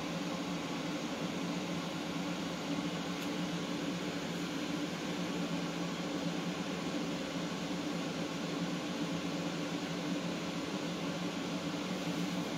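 Steady motor hum with an even hiss, an appliance or fan running without change.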